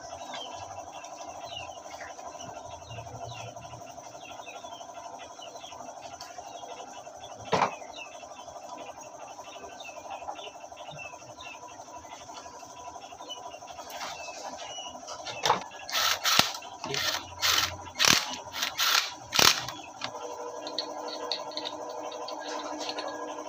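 Metal parts clicking and knocking as shafts and gears are fitted into a Rusi motorcycle engine's crankcase: one sharp click near the middle, then a run of about eight sharp metallic knocks a few seconds later. Birds chirp faintly over a steady background.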